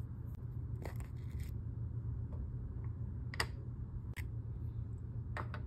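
Kinetic sand being pressed and worked by fingers around a heart mould: a few short crunches and clicks, about a second in, twice around three to four seconds, and two close together near the end, over a steady low hum.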